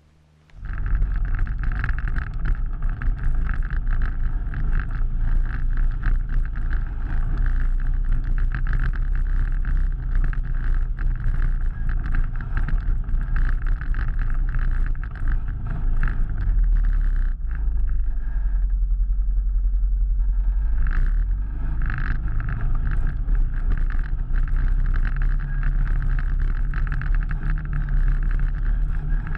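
ATV engine running while riding along a rough dirt trail, a steady low drone that comes in suddenly just after the start. It eases off briefly about two-thirds of the way through, then picks back up.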